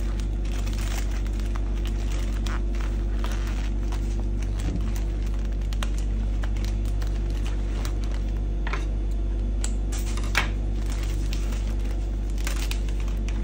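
Florist's wrapping sheets crinkling and rustling in handling as a bouquet is wrapped, in short crackly bursts over a steady low hum.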